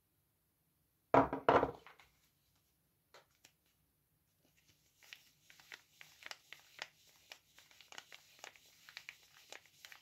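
A bar of soap knocked down onto the wooden table and the other bars, a couple of hard knocks about a second in, the loudest sound here. Then the printed paper wrapper of a boxed soap bar crinkling and crackling under the fingers, a dense run of small crackles over the second half.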